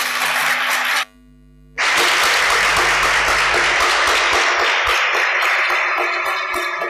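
Audience applauding. The applause cuts out for under a second about a second in, then comes back full and thins toward the end, where separate claps stand out.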